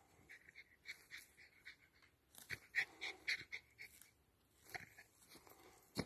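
Jack Russell Terrier panting with quick, short breaths, about five a second, louder around the middle.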